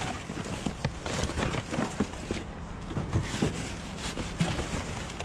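Irregular knocks, scrapes and rustling as boxes and junk are nudged and shifted around inside a dumpster.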